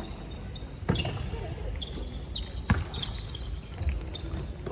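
A ball bouncing on hard ground, a few separate thumps with uneven gaps, with faint distant voices behind.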